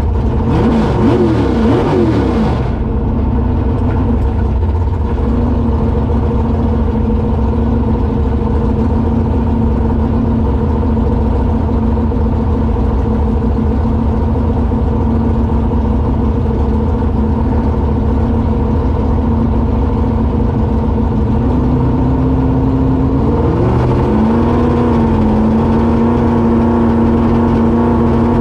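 V8 engine of a Ford Ranger drag truck idling, heard from inside the cab. The engine note briefly rises and falls in the first couple of seconds, and near the end it rises again and settles on a slightly higher steady note.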